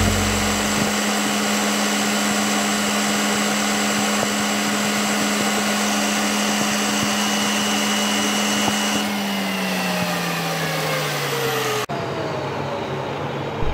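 Metal lathe running at steady speed while a friction tool rubs the red-hot spinning steel bar, a steady motor hum under a high hiss. From about nine seconds in, the hiss drops away and the hum falls in pitch as the lathe winds down.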